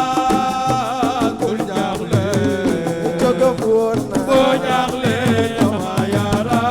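Live assiko band music: a melody line with held, bending notes over dense, driving percussion.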